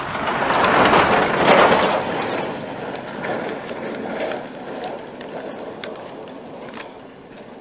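A truck passes on a dirt road, loudest about a second in, then fades as it drives away. Scattered light clicks follow.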